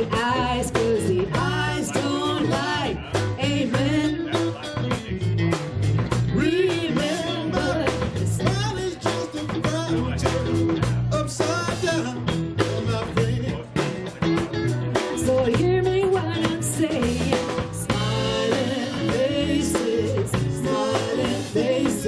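A live rock band playing: a drum kit keeping a steady beat, with guitar and a sung melody line over it.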